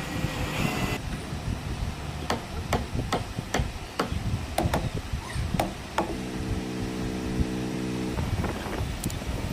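Hammering on wood: a regular run of sharp knocks, about two to three a second, over a steady low rumble, followed by a steady humming tone for about two seconds and two more knocks near the end.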